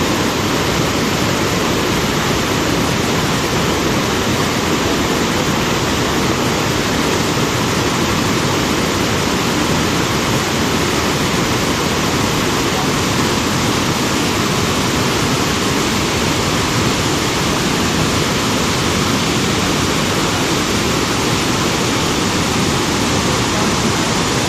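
Floodwater of the swollen Ghaggar river rushing, a loud steady roar of water.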